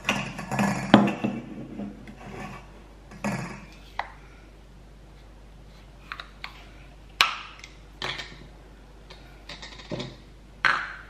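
Stainless steel dog bowls clinking and clattering as they are set down on a table, then scattered sharp clicks and rustles as the cap and seal come off a can of Kong Easy Treat.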